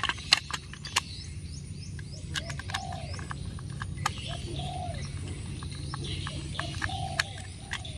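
A dove cooing softly three times, a couple of seconds apart, over scattered sharp clicks from a screwdriver and the hard plastic of a toy locomotive being handled.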